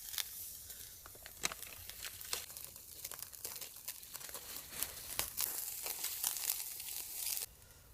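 Dense crackling, crinkling noise full of sharp ticks, starting abruptly and cutting off suddenly near the end.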